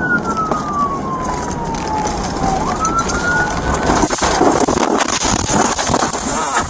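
Police car siren wailing: one slow fall in pitch, then a quicker rise, before it drops out about four seconds in. Behind it is a steady rush of tyres and water spray on a flooded road, which grows louder after the siren stops.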